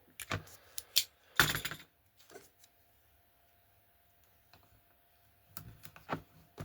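Light clicks and knocks of a plastic model wagon and its small parts being handled on a workbench: several in the first two seconds, the loudest about a second and a half in, then a quiet stretch and a few more clicks near the end.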